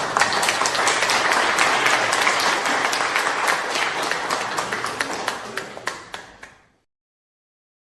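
Applause from a crowd: many hands clapping densely together, fading out over the last couple of seconds and stopping about seven seconds in.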